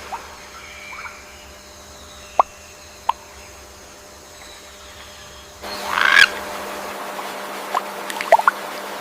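Bird calls: a few short, sharp notes spaced apart, a louder, harsher call about six seconds in, then a quick cluster of short chirps near the end.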